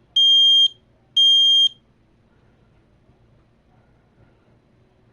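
Kidde voice smoke and carbon monoxide alarm sounding two loud, high-pitched beeps of about half a second each. These close its three-beep temporal-3 fire evacuation pattern.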